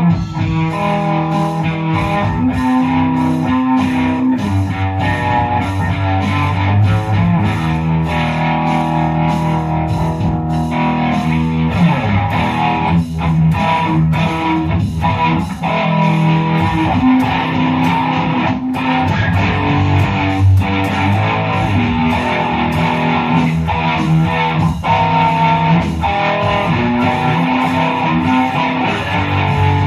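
Electric guitar playing a melodic line of held, changing notes, with a steady high tick keeping time about three times a second.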